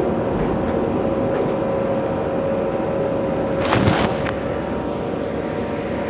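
Liebherr R9800 mining excavator running steadily with a constant whine, heard from inside its cab. About four seconds in there is a brief rumbling clatter as the bucket dumps its load of rock into the haul truck's bed.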